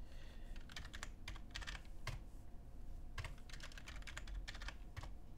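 Computer keyboard being typed on: short runs of keystrokes with pauses between.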